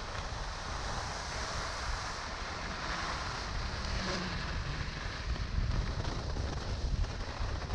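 Wind buffeting a moving camera's microphone, a low rumble, over the hiss of skis sliding and scraping across groomed snow.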